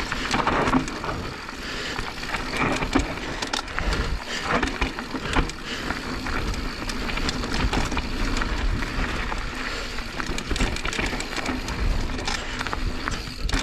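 Mountain bike rolling fast down a loose dirt trail: steady tyre and ground noise with many irregular knocks and rattles as the bike goes over bumps.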